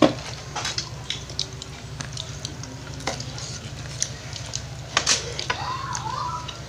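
Spoons and forks clinking and scraping on dishes as people eat, with scattered sharp clicks, the loudest right at the start and about five seconds in.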